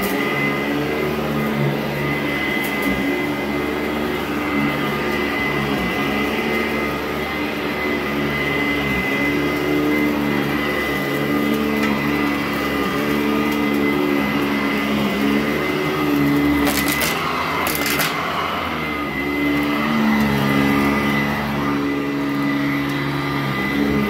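Sanitaire SC899 direct-air commercial upright vacuum running over carpet with its brush roll turning, its tone shifting every second or two as it is pushed back and forth. Two sharp clicks come about two-thirds of the way through.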